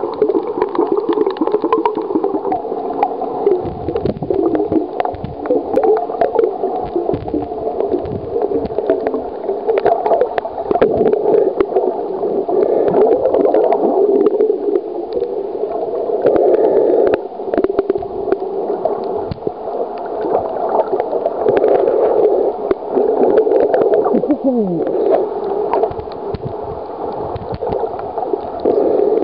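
Muffled underwater gurgling and crackling picked up by a waterproof compact camera's microphone while it is submerged, with one short falling whine about 24 seconds in.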